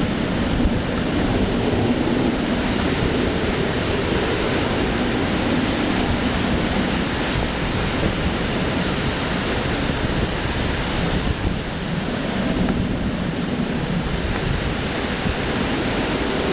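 Typhoon wind and rain: a loud, steady rush of noise that swells and eases slightly, without a break.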